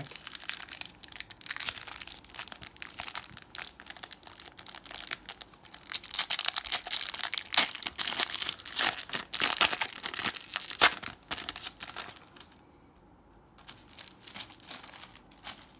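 Foil wrapper of a Panini Adrenalyn XL trading-card pack being torn open and crinkled by hand: a dense crackling rustle, loudest in the middle, thinning to a few faint rustles in the last few seconds.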